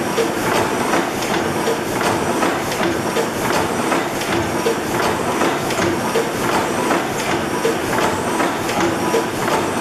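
600-horsepower Snow-Worthington reciprocating natural gas engine running, a steady rhythmic clatter of evenly repeating knocks.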